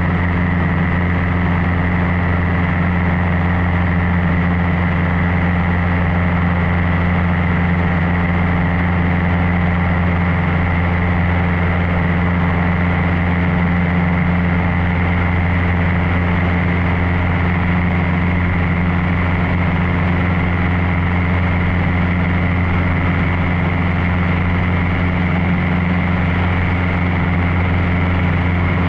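Cessna 150's four-cylinder Continental O-200 engine and propeller droning steadily in cruise flight, a constant low hum with no change in power.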